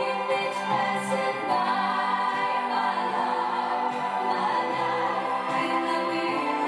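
A song with sustained singing, played through the small speakers of a compact CD hi-fi system.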